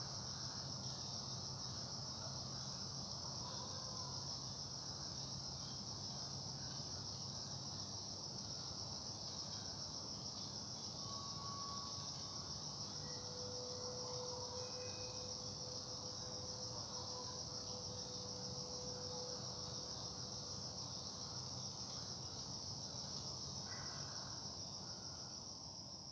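Crickets chirring in a steady, continuous high-pitched chorus, with a low hum underneath: night-time ambience.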